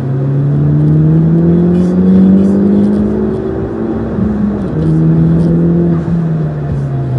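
A motor vehicle engine accelerating, its pitch climbing steadily for about four seconds. The pitch drops suddenly at a gear change, then holds and sinks slowly as the engine eases off.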